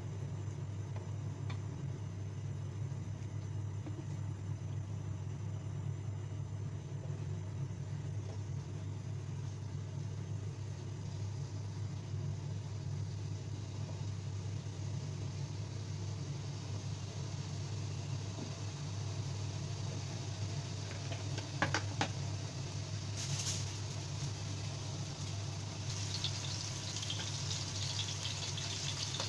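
A steady low machine hum, with a few short knocks a little past the middle; near the end, potato chunks in hot oil in a nonstick wok start to sizzle with a hiss.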